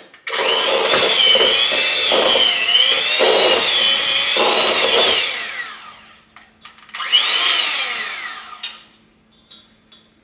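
Electric hand mixer shredding cooked chicken breasts in a pan: a loud motor whine whose pitch wavers, winding down after about five seconds, then a second shorter run about seven seconds in that rises and falls in pitch.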